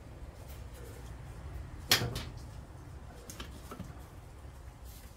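One sharp knock about two seconds in, then a couple of lighter clicks, from VW engine parts being handled and fitted during short-block assembly, over a low steady hum.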